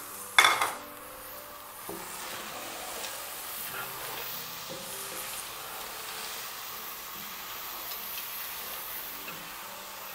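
A spatula stirring and scraping thick grated-carrot halwa and chopped dry fruits around a nonstick pot, with a steady low sizzle of the halwa cooking underneath. One loud scrape or knock of the spatula against the pot comes about half a second in.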